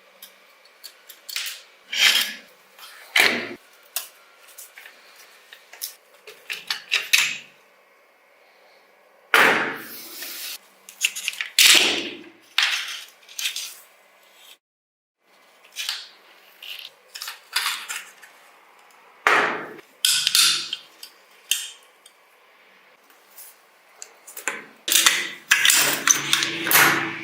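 Irregular knocks, clinks and short scrapes of hard objects being handled, in clusters with pauses between, cutting out completely for a moment about halfway through.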